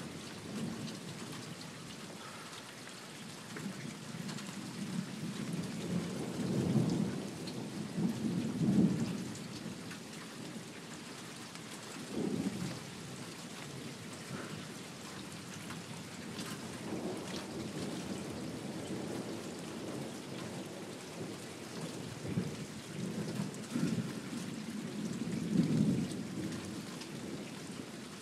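Thunderstorm: steady rain falling, with several long rolls of thunder rumbling low and fading. The strongest rolls come about a third of the way in and again near the end.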